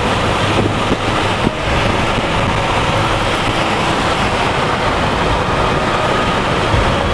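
Steady road and wind noise of a moving car, heard from inside the car.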